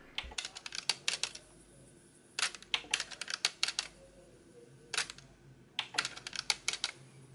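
Cassette transport mechanism of a Pioneer CT-S430S deck clicking in several quick runs of clicks as rewind and fast forward are tried, over a faint low hum. The functions fail to engage, which the owner puts down to a slipping function belt that needs replacing.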